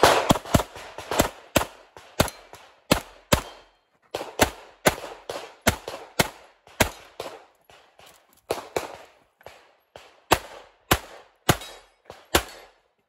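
CZ Shadow 2 9mm pistol fired rapidly at targets, with sharp shots mostly in quick pairs and short pauses between strings of fire.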